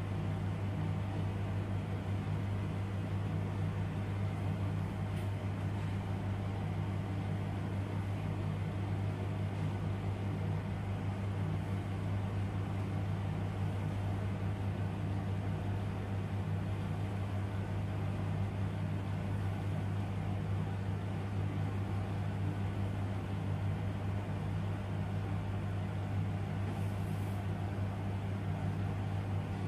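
Steady low mechanical hum that does not change.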